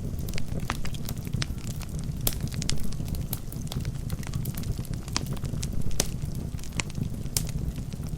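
Wood fire burning in a fireplace: a steady low rumble of flames with sharp crackles and pops from the logs coming at irregular intervals, several of them louder.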